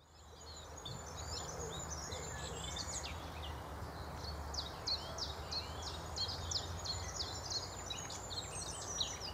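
Birdsong fading in over the first second: quick, high chirps and repeated short descending notes, over a steady low rumble.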